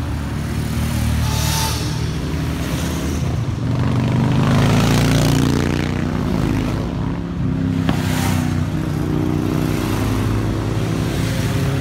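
Several motorcycle engines running at once, their pitches rising and falling as they rev.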